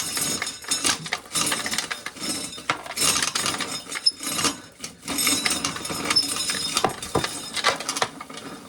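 Corn sheller's teeth stripping kernels off a dried ear of corn: a dense, irregular rattle of clicks as the kernels break loose and clatter down. The ear is bent, so it goes through the sheller roughly.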